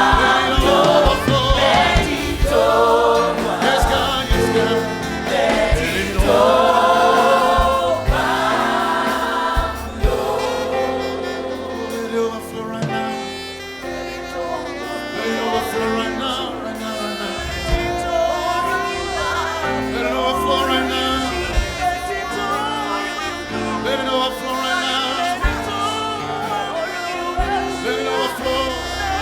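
Gospel choir singing with band accompaniment; the voices are strongest in the first ten seconds or so, after which the band carries on with a wavering melodic lead line.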